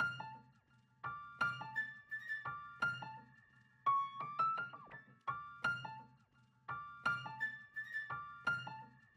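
Background music: a light piano or electric piano tune of separate notes, each struck and fading.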